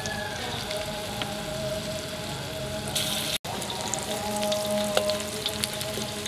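Flour-coated pork rib pieces deep-frying in hot oil in a wok: a steady sizzle with scattered crackles and pops. The sound cuts out for an instant just past halfway.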